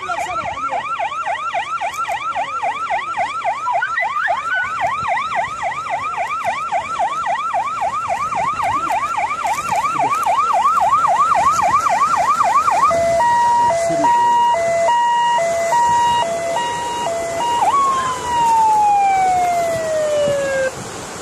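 Electronic emergency siren in a fast yelp, its pitch swinging up and down about three times a second, then switching to a two-tone hi-lo alternation, then one long falling tone that cuts off near the end.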